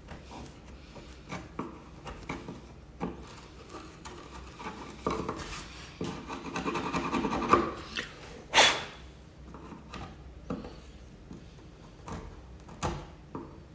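Wood chisel scraping and paring hardened glue out of a glue joint in an 1884 Victorian wooden door, in irregular strokes. A denser run of scraping comes about five seconds in, followed by a single sharp, louder stroke.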